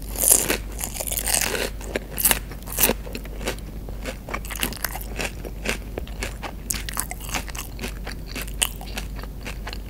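Close-miked chewing of a crunchy tortilla chip with guacamole. A few loud crunches come in the first three seconds, then a quick run of smaller crunches and clicks as the chewing goes on.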